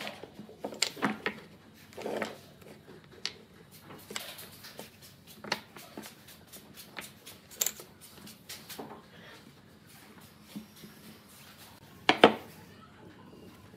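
Wooden blocks knocked and set down on a plywood board while being fitted into a ring: scattered light clicks and knocks, wood on wood, with the loudest knock near the end.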